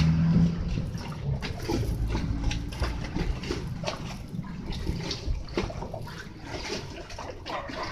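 Water lapping and knocking against moored boat hulls and the landing, a run of small irregular splashes and clicks over a low wind rumble on the microphone. An engine fades out in the first half second.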